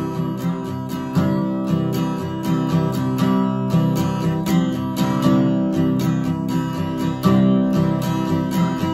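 Acoustic guitar strummed in a steady rhythm, without singing: the closing instrumental bars of the song.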